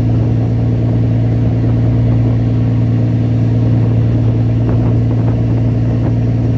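Engine of the small boat carrying the camera, running steadily at constant speed: a loud low drone whose pitch holds even throughout.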